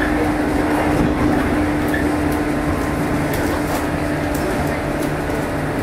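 JR East 115 series electric train running, a steady rumble with a motor hum that fades about a second in.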